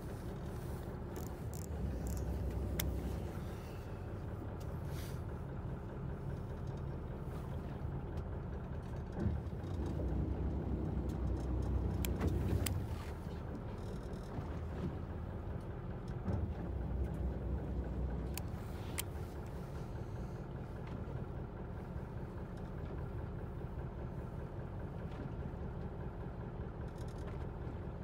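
A fishing boat's engine running steadily, with a few sharp clicks and knocks.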